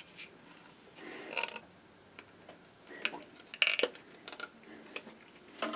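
Faint scattered clicks and small rustles of hands handling an Intel desktop CPU over the motherboard socket.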